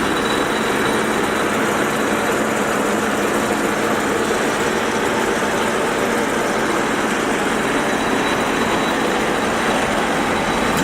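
1941 Monarch Model 14 WAA geared-head lathe running under power, its headstock gear train giving a steady whir with a faint high whine.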